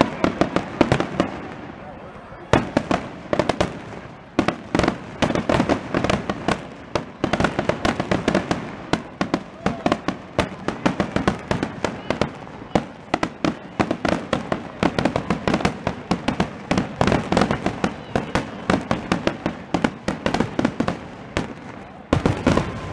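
Aerial fireworks shells bursting in a fast barrage, a dense run of sharp booms and crackles, several every second.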